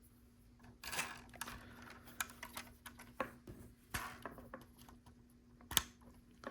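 Small plastic LEGO pieces being handled and fitted: a scatter of short light clicks and rustles, the sharpest near the end.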